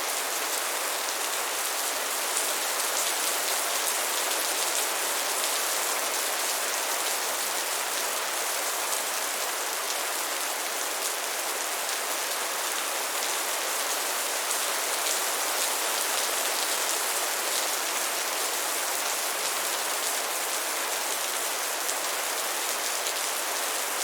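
Heavy rain falling steadily in a downpour, an even hiss of many drops pattering on surfaces.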